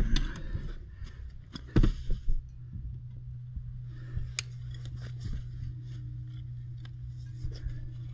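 Steady low electrical hum, typical of a stick welder's transformer, with a few sharp metal knocks and clanks: one at the start, a cluster about two seconds in, and another past the middle.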